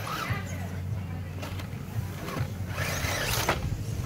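Radio-controlled 1/10-scale rock crawler driving up a wooden ramp: small electric motor and gears whirring, with tyres scrabbling on the wood in rough bursts, the strongest about three seconds in.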